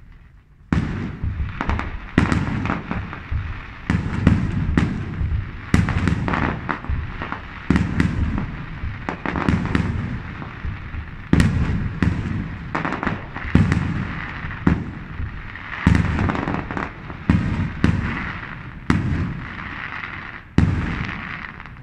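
Aerial firework shells bursting in a steady barrage, a sharp bang every half second to a second, some in quick pairs, each trailing off. A crackling hiss fills the gaps between bangs and grows stronger in the second half.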